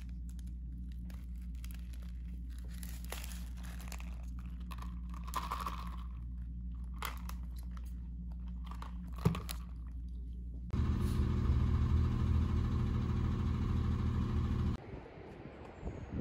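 Crunching and crinkling of food being eaten and its paper wrapper handled, with scattered clicks and a sharp click about nine seconds in, over a steady low hum. About eleven seconds in, a louder low rumble takes over for about four seconds and cuts off abruptly.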